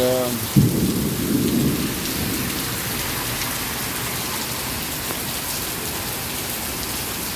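Heavy rain falling steadily, with a sudden crack of thunder about half a second in that rumbles on for about a second and a half.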